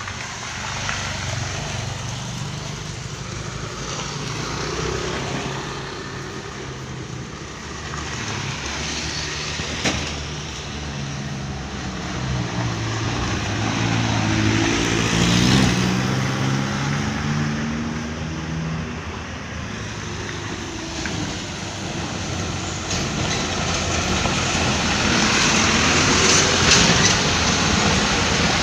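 Motor vehicle engine running amid steady road traffic noise. The engine note grows stronger and shifts in pitch about halfway through, then fades back into the traffic, and the noise swells again near the end.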